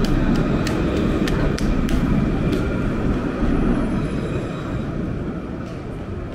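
Electric city tram passing close by on its rails: a steady rumble with a faint high whine that fades over the last couple of seconds as it moves away. A series of sharp clicks comes in the first few seconds.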